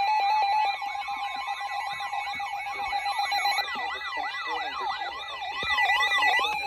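Electronic siren wail from an emergency alert broadcast: several overlapping tones sweeping rapidly up and down over a steady high alert tone, the wails growing stronger in the second half.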